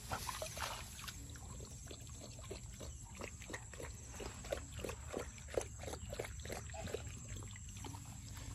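A Thai Ridgeback dog lapping water from a puddle, at about three laps a second.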